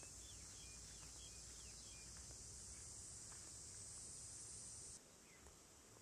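Faint steady high-pitched insect chorus, with a few short falling bird chirps in the first couple of seconds; the chorus drops in level about five seconds in.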